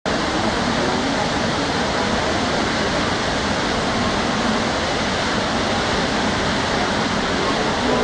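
Small waterfall pouring over rock ledges: a loud, steady rush of falling water.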